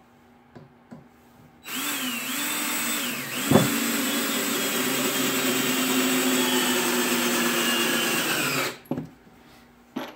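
DeWalt cordless drill driving a long wood screw into lumber. The motor whines steadily for about seven seconds, starting about two seconds in, with a short hitch and a sharp knock a second and a half after it starts, then its pitch sags slightly before it stops.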